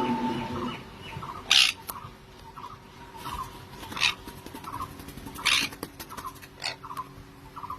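Pet parrots calling while being fed: a run of short, evenly repeated chirps, broken three times by a louder harsh squawk.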